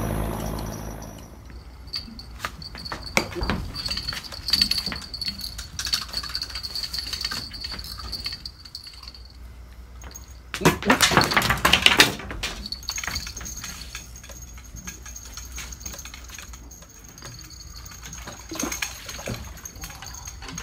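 Fishing gear being handled on a wooden raft: scattered clicks and rattles, with a louder noisy burst lasting about a second and a half near the middle.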